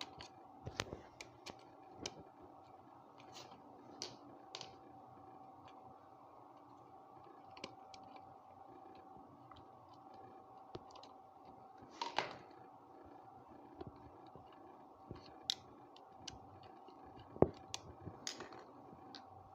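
Light, scattered clicks and small scrapes of the earth wire and a screwdriver being worked into the terminal of a 13 amp socket, over a faint steady hum. A longer scrape comes about twelve seconds in, and a sharp click comes a few seconds before the end.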